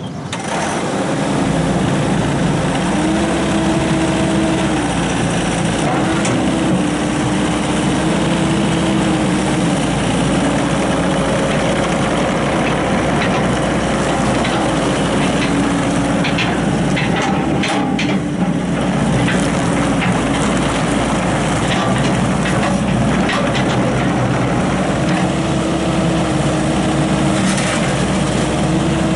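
Bobcat 442 excavator's Deutz diesel engine running steadily, its pitch shifting up and down a few times, with a few short clanks in the second half.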